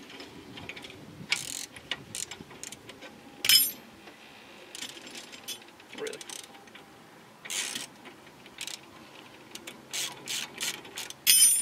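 Socket ratchet clicking in short runs as bolts are worked loose on a car's front spindle, with a few sharp metallic clinks of tools, the loudest about a third of the way in and near the end.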